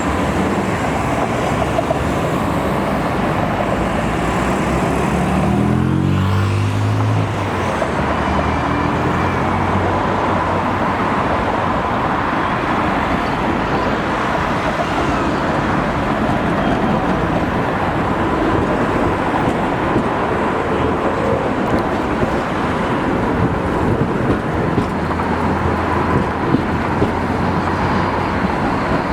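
Steady road traffic at a busy city intersection. About five seconds in, one vehicle pulls away with a motor whine rising in pitch over a couple of seconds.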